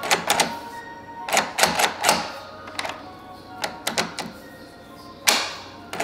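Baldwin mortise lockset being worked by its knob: the spring latch clicks and clacks metallically in and out, in several quick clusters, the sharpest clack about five seconds in. Background music plays underneath.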